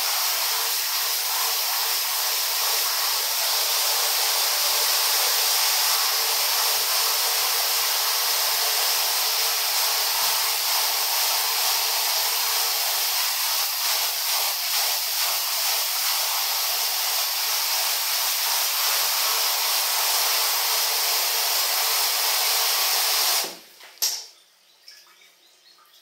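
Handheld shower head spraying a steady hiss of water onto a crocodile's back and the tiled floor. The water cuts off suddenly near the end, followed by a single sharp knock.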